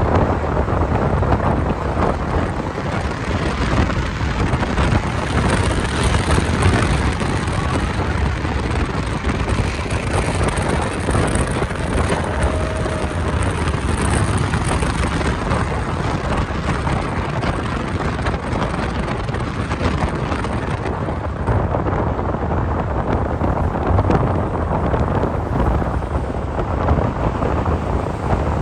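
Steady road and engine rumble of a moving vehicle, with wind buffeting the microphone. The higher hiss dulls about three-quarters of the way through.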